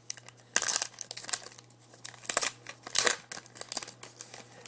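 A trading card pack's wrapper being torn open and crinkled by hand, in irregular crackling bursts, the loudest about half a second in and again about three seconds in.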